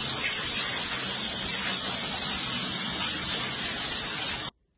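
Steady loud hiss without any pitch, cutting off suddenly near the end.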